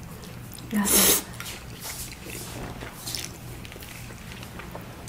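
A person slurping up a forkful of cream spaghetti: one loud slurp about a second in, then softer chewing and mouth sounds.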